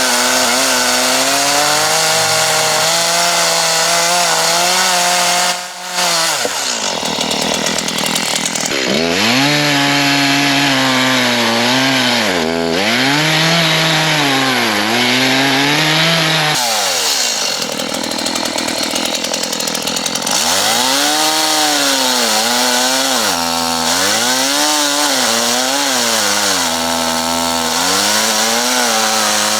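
Chainsaw running at high revs while cutting wood, its engine note sagging under load and picking up again over and over. About six seconds in, the sound breaks off for a moment.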